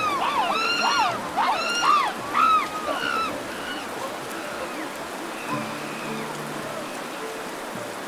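Baboons giving several high, arching squeals that overlap through the first three seconds or so, over steady rushing water. The water noise carries on alone after the calls stop.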